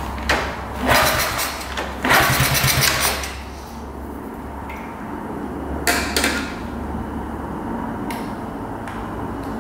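Honda Z50's freshly rebuilt 50cc four-stroke single running just after its first start, with a few loud surges in the first three seconds and again about six seconds in, then settling to a steady run while the new carburetor is being adjusted.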